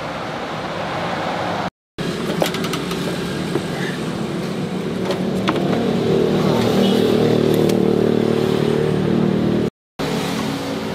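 Roadside traffic noise with a motor vehicle engine running, swelling louder through the middle and holding for a few seconds. Over it come a few sharp metal clinks of a ladle against a steel pot. The sound cuts out abruptly twice for a split second.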